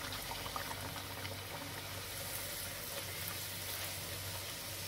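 Bhatura dough deep-frying in very hot oil in a steel kadai: a steady sizzle with faint crackling.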